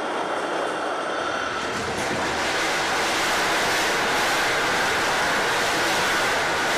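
Aircraft carrier's heavy steel anchor chain running out at speed along the deck and down the chain pipe as the anchor is let go: a loud, continuous rattle of big links, growing louder and fuller about two seconds in.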